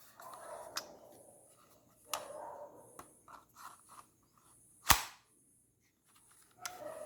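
Airsoft pistol: a few light mechanical clicks and scraping handling sounds, then a single sharp shot about five seconds in, by far the loudest sound.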